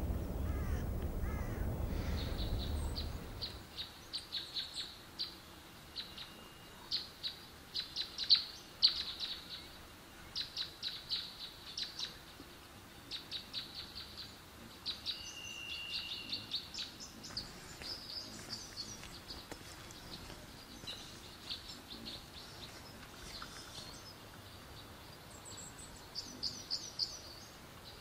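Small songbirds singing in rapid bursts of short, high chirps, with a few longer whistled notes. A low engine rumble fades out about three seconds in.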